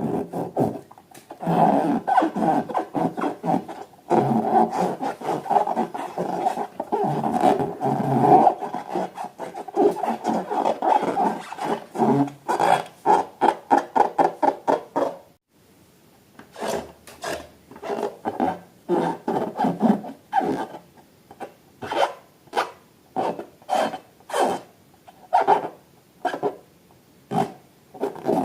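Rubber balloon squeaking and rasping as it is handled. There is a long stretch of continuous rough rasping, then from about halfway a series of short separate squeaks, one or two a second.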